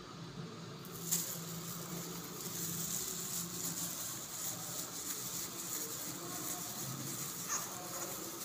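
Soft crinkling rustle of a clear plastic glove handling a newborn's leg, with a sharp click about a second in, over a faint steady hiss.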